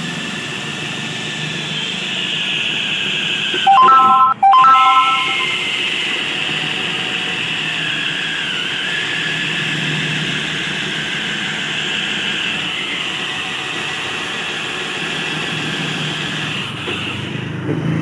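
Cordless drill running in long runs while it bores into a freezer's inner sheet-metal liner, its whine dipping briefly under load partway through. A shorter, louder, higher-pitched whir comes about four seconds in.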